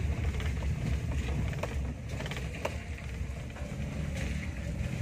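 Steady low rumble of a car's engine and tyres heard from inside the cabin while driving slowly on a wet road, with a few light clicks.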